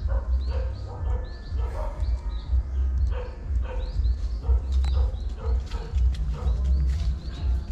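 Short animal cries repeated about twice a second over a low, uneven rumble.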